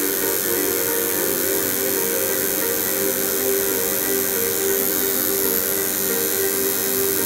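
Coil tattoo machine buzzing steadily as it works.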